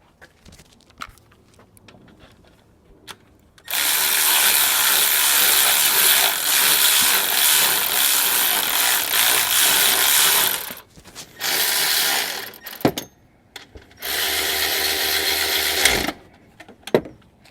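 Electric ratchet whirring in three runs, a long one of about seven seconds, then two short ones, as it snugs down the mounting bolts of a replacement alternator. A few light clicks come before the first run.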